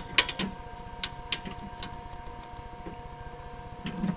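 Gorton 9-J milling machine's electric drive running on VFDs fed from a rotary phase converter: a steady electric hum of several held tones over a fast, low ticking pulse, with a few light clicks scattered through it.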